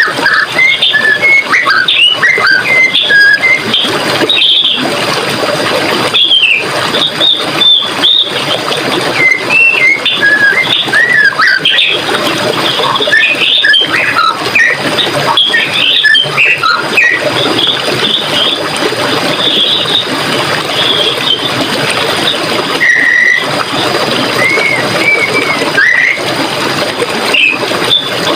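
Steady rush of running water with small birds chirping and singing over it, many short quick notes throughout.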